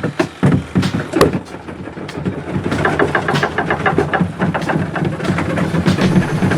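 Spin-dryer drum of a Whirlpool Ace 7.5 kg semi-automatic washing machine spinning up, with a rapid, regular rattle that sets in about two and a half seconds in after a few irregular knocks. The owner calls this level of noise normal during spin-drying.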